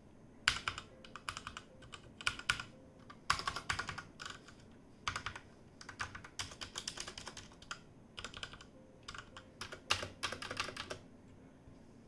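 Typing on a Cosmic Byte CB-GK-18 Firefly mechanical keyboard with Outemu red linear switches: bursts of quick key clacks separated by short pauses, stopping about a second before the end.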